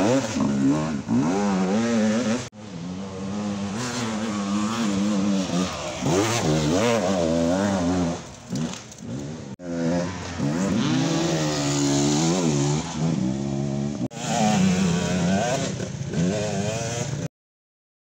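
Racing motorcycle engines revving up and down repeatedly as bikes lap a track. The sound comes in four short stretches with sudden cuts between them and stops abruptly near the end.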